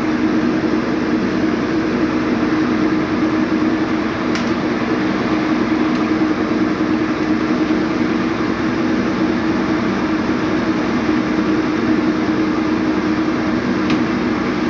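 Steady mechanical drone of a running machine, with a faint click about four seconds in and another near the end.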